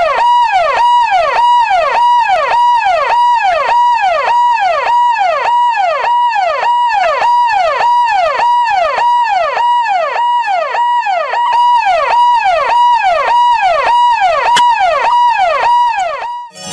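Electronic siren sounding a fast repeating cycle about twice a second, each cycle a held high tone that drops off sharply. It cuts off suddenly near the end.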